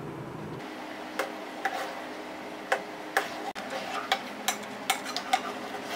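Steel spoon stirring milk tea in a saucepan, clinking irregularly against the pan's sides, starting about a second in.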